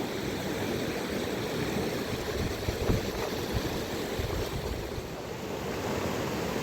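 Steady rush of a mountain river, with a low thump about three seconds in.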